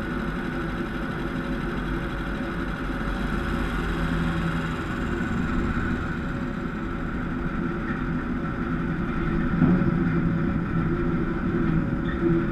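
Bus engine running steadily at low parade speed, with road noise, picked up by a camera mounted on the outside of the bus; a brief louder knock about ten seconds in.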